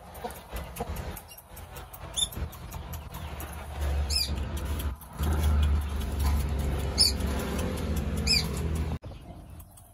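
Four short, high-pitched animal squeaks, each falling in pitch, spaced a second or two apart, over a low rumble that swells about four seconds in and cuts off abruptly near the end.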